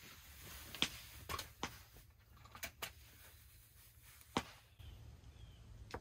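A few faint, sharp clicks and snaps at irregular intervals, the loudest about four and a half seconds in, over a quiet background.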